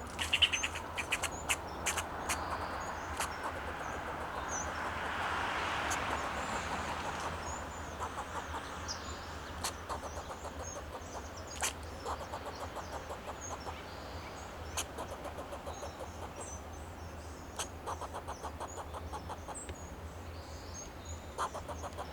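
Fox squirrel alarm call: short, sharp barks given in quick runs, again and again. Small bird chirps sound high in the background, and a broad rushing noise swells and fades in the middle.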